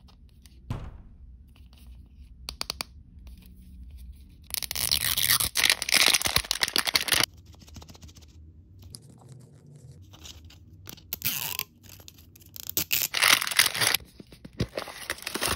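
Plastic wrapping and gold foil being crinkled, peeled and torn off an L.O.L. Surprise toy ball, in two long loud stretches, with small clicks and taps of fingernails on the plastic between them.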